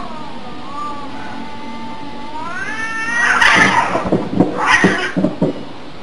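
A domestic cat yowling: one long drawn-out call that rises in pitch about three seconds in, then breaks into several short, harsh cries.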